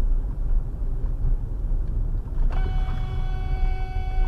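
Low road and engine rumble heard from inside a moving car's cabin. About halfway through, a car horn sounds one long steady blast.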